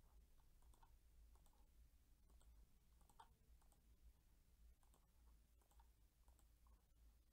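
Faint computer mouse button clicks, irregular, about one or two a second, each one pressing a key on an on-screen keyboard to type letter by letter. A low steady hum runs underneath.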